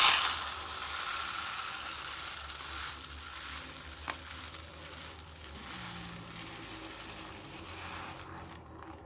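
Buckwheat groats pouring from a plastic tub into a paper cup, a continuous hiss of falling grains that is loudest at first, tapers off and stops near the end. One light click about four seconds in.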